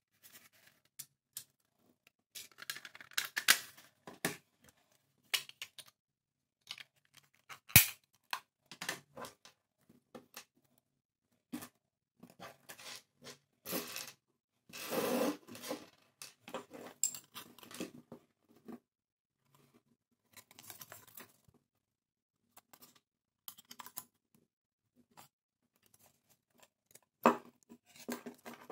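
Irregular clicks, taps and knocks of hard plastic telephone parts (casing, loose keypad keys and a circuit board) being handled and set down on a table, with a longer scraping rustle about halfway through.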